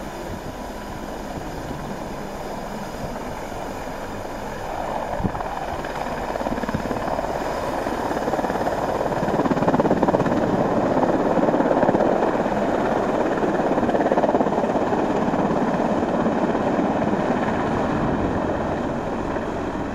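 Helicopter rotor and engines running. The noise swells about eight seconds in and stays loud.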